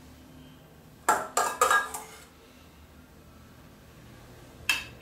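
Metal spoon clinking against dishes as marinade is spooned out: a few quick clinks just after a second in, and another near the end.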